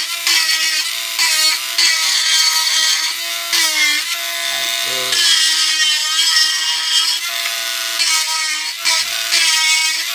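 Cordless engraving tool running with a steady high motor whine, its bit grinding into wood in repeated short strokes.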